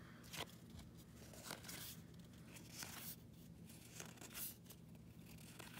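Faint scrapes of baseball cards being slid one at a time off the front of a small stack, card stock rubbing on card stock, a few brief strokes spread across the few seconds.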